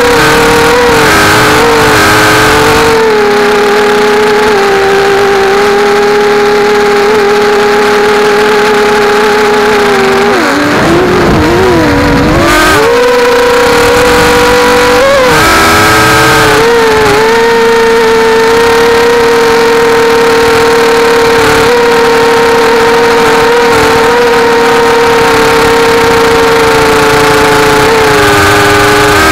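A 250-size mini quadcopter's motors and propellers whining steadily, heard from the onboard camera. The pitch dips and wobbles about ten seconds in, climbs back, and swoops briefly again near fifteen seconds before settling.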